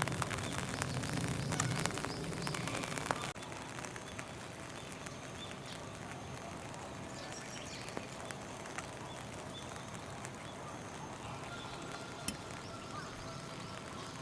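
Outdoor background noise: a dense crackling hiss for about three seconds, then, after an abrupt change, a quieter steady hiss with a single sharp click near the end.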